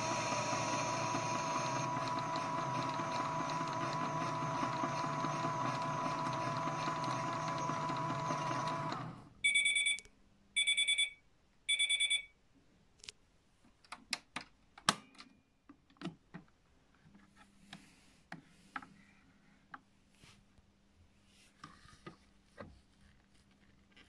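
Miele W1 toy washing machine's small motor turning the drum with a steady whine and hum, stopping about nine seconds in. Then three short high beeps about a second apart mark the end of the cycle, followed by scattered clicks and knocks of the plastic door being opened and the wet washing handled.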